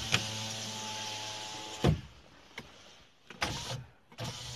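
Car's electric power window motor running steadily as the glass winds down, ending in a thump about two seconds in as the glass reaches the bottom. A couple of switch clicks follow, then another power window motor starts near the end.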